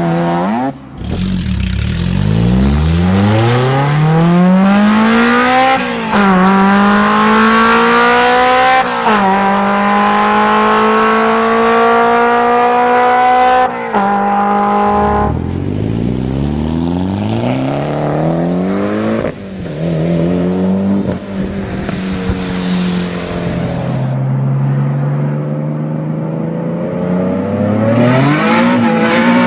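Maserati Quattroporte engine and exhaust under hard acceleration, the note climbing steadily through the gears with a brief drop in pitch at each upshift, over several separate runs. Near the end it settles to a lower, steadier note, then starts rising again.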